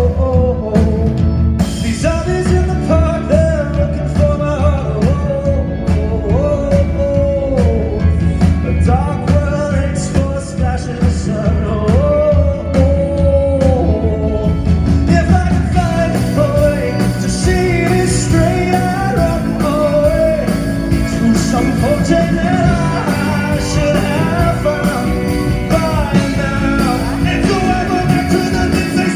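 Live rock song: a male singer with a band playing behind him. The accompaniment grows fuller and brighter about halfway through.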